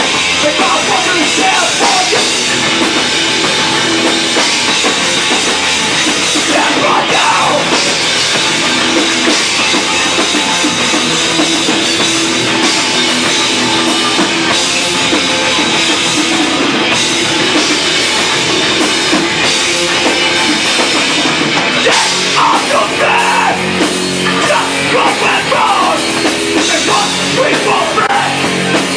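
Hardcore band playing live: electric guitars and a drum kit going full tilt, with a vocalist shouting in places, loudest about seven seconds in and again near the end.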